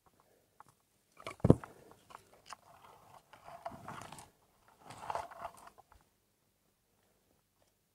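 Footsteps crunching through dry leaf litter and twigs, with brush rustling against the walker, in uneven clusters; one sharp crack about a second and a half in is the loudest sound. The crunching stops about six seconds in.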